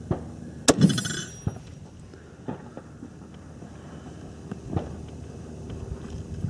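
Swiss K-31 rifle's straight-pull bolt being worked between shots: a sharp metallic clack with a short bright ring about a second in, then a few scattered soft clicks.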